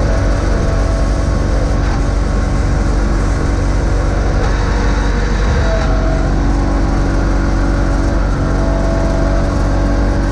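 John Deere X585 garden tractor's V-twin engine running steadily while plowing snow with a front blade. The engine note shifts slightly about halfway through.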